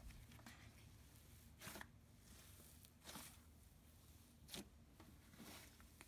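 Slime being mixed by hand: about four faint, short sounds of the slime being worked, spaced a second or so apart.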